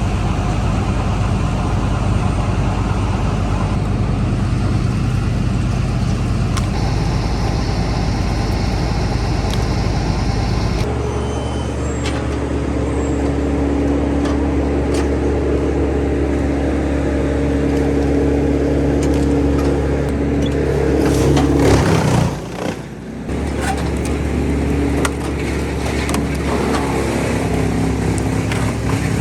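Heavy machinery engines at a tree-removal job, likely the crane and wood chipper, running steadily with a deep hum. The engine tone changes abruptly about a third of the way in and briefly drops away past the middle.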